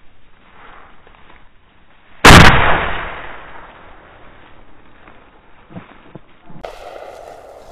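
A single shotgun shot, sharp and very loud, with its report dying away over about a second.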